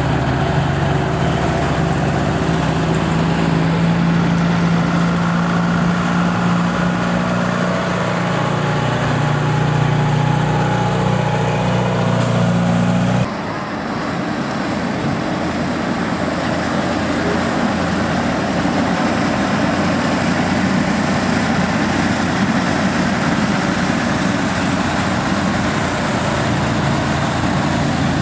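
Heavy truck diesel engines running as the trucks move past. First a tri-axle dump truck gives a steady low drone, then the sound changes abruptly about halfway through to the rougher running of an old tractor-unit truck's engine.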